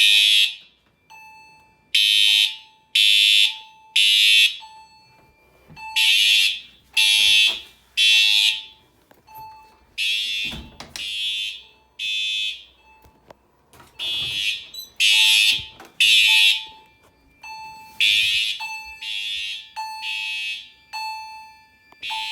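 Fire alarm horns sounding in alarm after a pull station has been pulled: loud, harsh blasts in the temporal-three evacuation pattern, three about a second apart and then a pause, repeating. A softer, single-pitched beep from another device on the system repeats alongside them.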